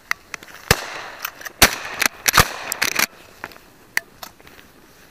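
Shotgun shots fired at ducks: three loud shots about three-quarters of a second apart, among a scatter of quieter sharp cracks.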